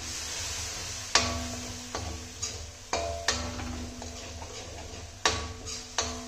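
Steel ladle stirring and scraping spice paste in an aluminium kadai, knocking against the pan about seven times at an uneven pace. Each knock leaves a brief metallic ring, over a soft sizzle as the masala is fried down with a little water.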